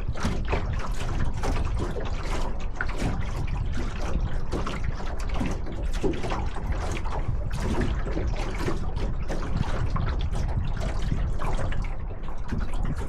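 Water lapping and trickling against the hull of a small sailboat moving slowly under sail, in many small irregular splashes, over a steady low rumble.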